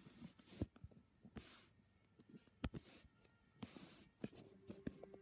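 Faint rustling and scattered small clicks of handling noise. Near the end a steady low hum begins.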